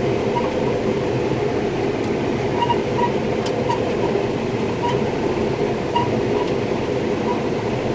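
Combine harvester running steadily while harvesting corn, heard from inside the cab: an even drone of engine and threshing machinery, with faint light ticks now and then.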